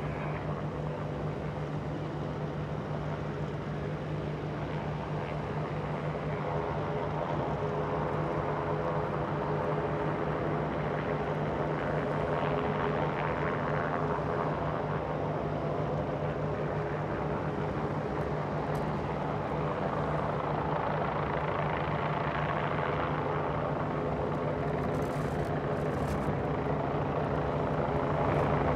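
Boeing 787-9 jet airliner's turbofan engines running at low power as it taxis onto the runway: a steady hum and whine with several held tones. It swells gently twice and grows a little louder near the end.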